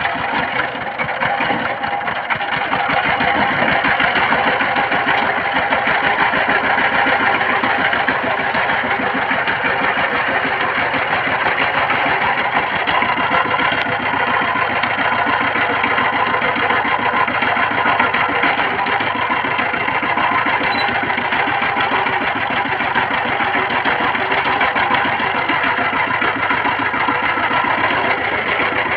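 Diesel engine of a two-wheeled power tiller running steadily with an even, fast pulse, a little quieter for the first couple of seconds.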